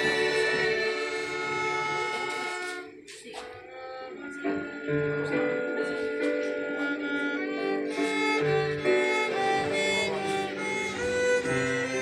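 Violins playing a tune in long held notes, several pitches sounding together. The playing thins out about three seconds in and picks up again a second or so later.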